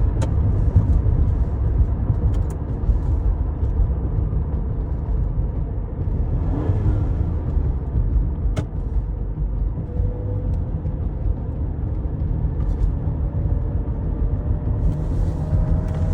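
Steady low rumble of road and tyre noise inside a car cabin at highway speed, with a few faint clicks.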